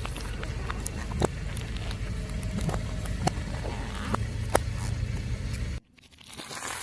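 Car running slowly with a steady low rumble while its tyre crushes objects, giving scattered sharp crackles and snaps. The sound cuts off abruptly near the end.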